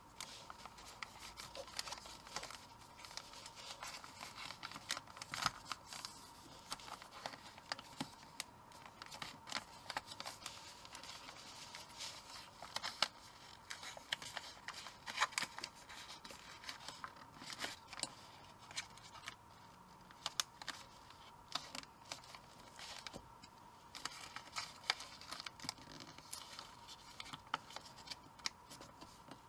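Origami paper being folded and creased by hand: faint, irregular crinkles and rustles with short, sharp creasing clicks as the folds are pressed down.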